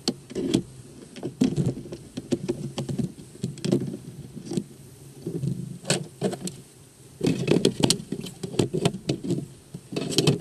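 Irregular clicks, knocks and rattles of gear being handled at a sea kayak's cockpit, heard close up through a camera mounted on the kayak's deck, with a denser run of knocks in the second half.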